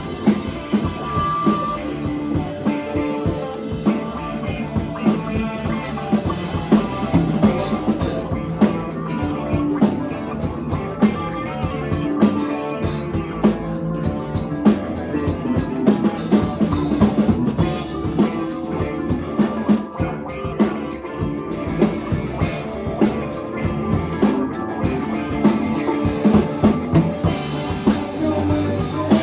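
Live band playing: drum kit with bass drum and rimshots keeping a steady beat under guitar.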